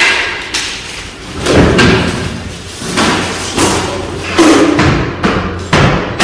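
Background music mixed with repeated thumps and knocks of flat-pack furniture panels and cardboard boxes being handled and set down on a tiled floor.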